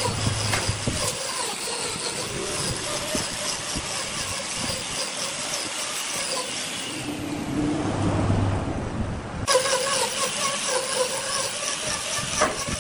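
Handheld angle grinder running, its disc grinding and carving into the end of a large wooden vase: a steady motor whine over a rasping grind, with a sudden change in the sound about nine and a half seconds in.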